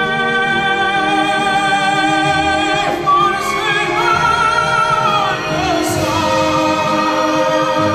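Operatic-style singing over musical accompaniment, with long held notes sung with vibrato.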